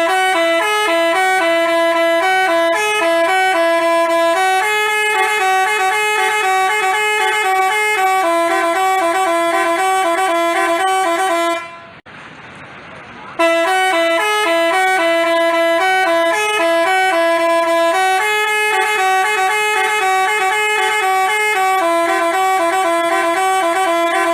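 Telolet multi-tone bus horn (Basuri type) playing a tune of quick stepped notes. The tune plays twice, with a pause of about a second and a half near the middle.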